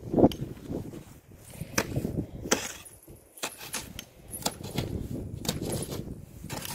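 Snow shovel cutting and scraping into packed snow, with several sharp irregular strokes and crunching snow between them. The loudest stroke comes just after the start.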